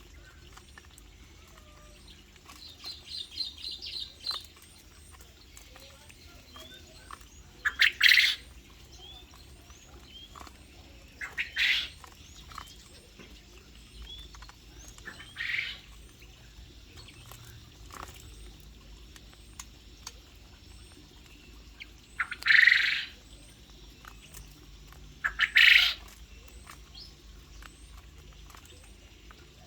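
Aviary birds calling: a quick run of about eight high chirps, then five short loud calls spaced several seconds apart.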